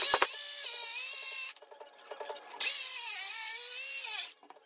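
Cordless DeWalt circular saw cutting into a thick hardwood slab in two runs of about a second and a half each, with a short pause between them. Its whine dips in pitch as the blade bites and then recovers.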